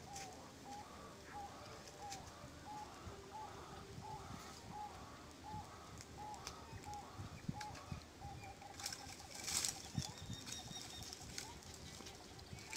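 A bird calling, one short note repeated about twice a second, running into a quick trill of notes about eight seconds in. A few louder rustles and knocks come near the end and are the loudest sounds.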